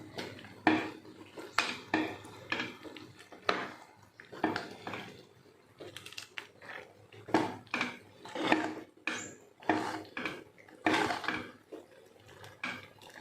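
A spoon knocking and scraping against metal pots and vessels in irregular clinks, as ground bottle gourd paste is scraped into a pot of cooked rice and stirred in.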